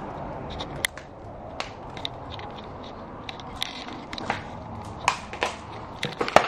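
Footsteps crunching and scraping over debris on a littered tile floor, a string of irregular sharp cracks and clicks, with a louder crack near the end.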